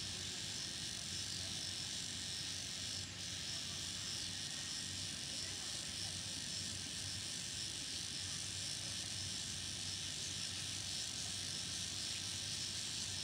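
A chorus of cicadas and other insects calling together in a continuous high shrill, with a faint regular pulse in it, over a steady low hum.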